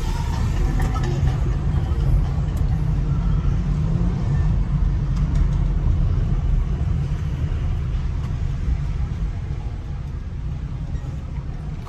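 Steady low rumble of a car's engine and tyres heard from inside the cabin as it drives slowly along a city street, easing a little near the end.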